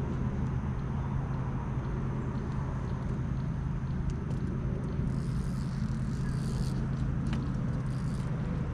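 A steady low mechanical hum at a constant level, with a faint high hiss for a couple of seconds past the middle.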